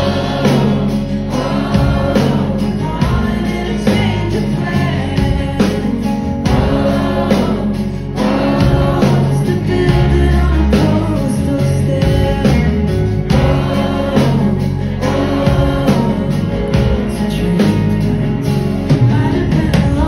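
Live indie-folk band playing a song: a woman singing the melody into a microphone over strummed acoustic and electric guitars, bass and drums.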